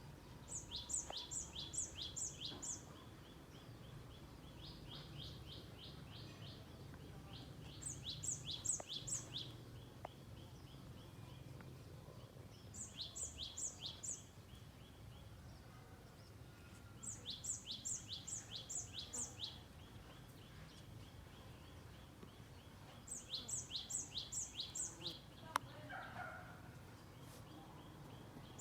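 A songbird singing, repeating short phrases of quick high notes every four to five seconds, over a low background hum.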